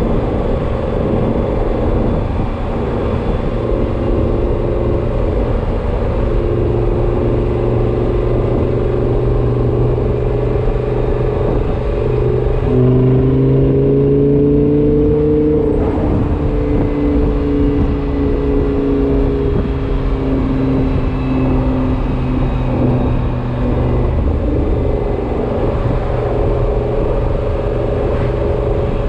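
A car running with a whine over the steady engine sound. The whine climbs in pitch from about halfway through, breaks off, then sinks back down and fades. The owner is unsure whether this whine is normal or a fault.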